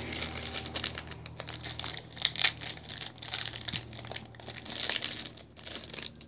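Plastic packaging crinkling and rustling as it is handled, in irregular crackles that cut off suddenly at the end.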